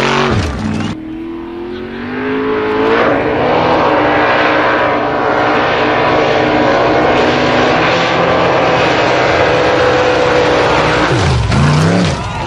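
Formula offroad buggy engines revving hard. A rev climbs and then holds at a high, steady pitch for several seconds, with quick rises and falls in revs near the start and near the end.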